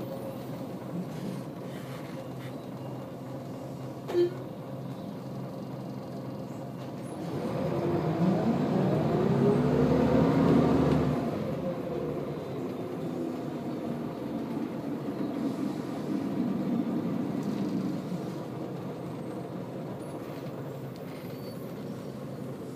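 Scania L94UB bus heard from inside the saloon while it drives: a steady engine and road drone, with a short sharp blip about four seconds in. Around the middle the engine grows louder and its pitch climbs and then falls away as the bus pulls harder, before settling back to the steady drone.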